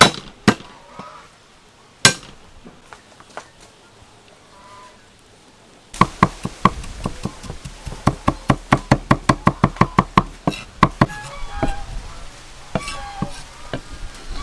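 Meat cleaver chopping garlic on a thick wooden chopping block. A few single heavy knocks come first. From about six seconds in there is a fast, even run of chops, about four a second, which breaks into scattered strokes near the end.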